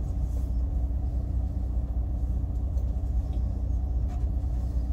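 Inside a bus cabin: the bus's engine and running gear make a steady low rumble with a faint constant hum over it.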